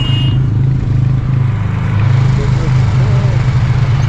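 Motor vehicle engine running steadily, a loud low drone.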